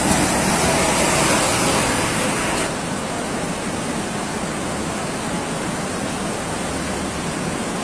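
Muddy floodwater rushing across a road: a steady, loud rushing noise that drops a little in level about three seconds in.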